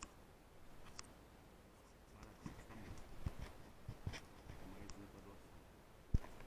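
Faint handling noise from a rifle-mounted scope camera: scattered soft clicks and scraping, with one short low thump about six seconds in.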